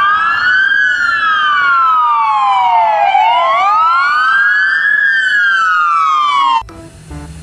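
Police car siren wailing: two slightly offset tones rise, fall slowly, rise again and fall again, then cut off suddenly about six and a half seconds in.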